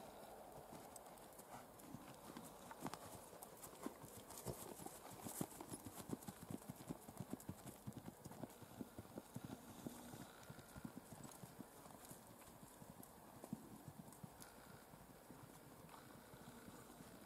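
Quick, even hoofbeats of a gaited mare moving in her smooth saddle gait on dirt footing, loudest a few seconds in.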